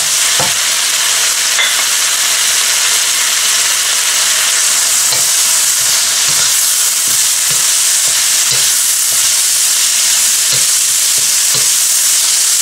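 Bitter gourd and tomatoes frying in a non-stick wok with a steady sizzle, while a wooden spatula stirs them and knocks against the pan now and then.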